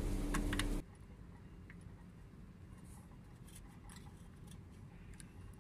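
Faint clicks and light scraping of a screwdriver and wires being worked at a flood light's terminals. A steady background hum cuts off suddenly under a second in.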